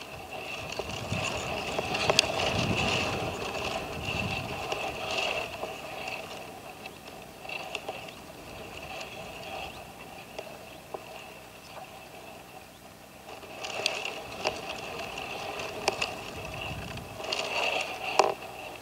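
Caged red-legged partridge call-bird calling in bouts of rapid, harsh notes. The calling is strong at first, weaker through the middle and strong again near the end, with a few sharp clicks.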